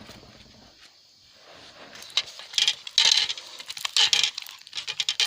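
Light clicking, rattling and rustling as the opened laptop battery pack and its broken plastic casing are handled, mostly in the second half.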